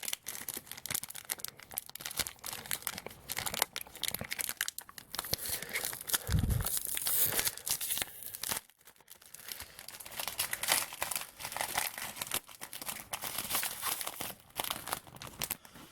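Foil wrapper of a trading card pack being torn open and crinkled, with crackly rustling throughout and a brief lull about nine seconds in. A soft low thump about six and a half seconds in.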